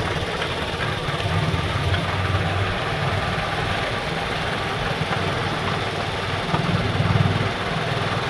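A vehicle's engine running steadily while moving along a road, a low pulsing hum over a steady hiss of road and wind noise.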